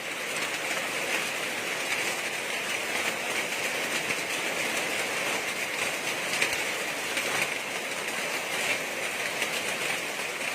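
Hailstorm: hail and rain pelting down in a dense, steady patter.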